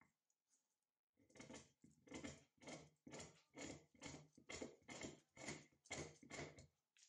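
Knife blade shaving a fatwood stick: a quiet run of short scraping strokes, about two a second, starting about a second in.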